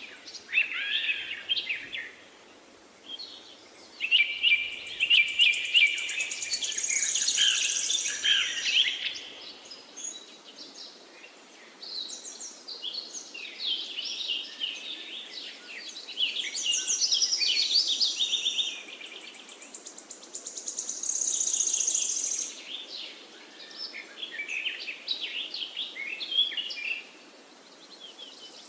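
Birds chirping and singing: quick chirps and trills come in bouts of a few seconds, with short lulls between, over a faint steady hiss.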